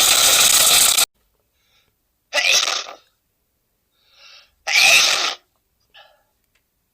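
A man sneezing over and over. A long sneeze ends about a second in, then two more sneezes follow, the last one preceded by a short voiced wind-up.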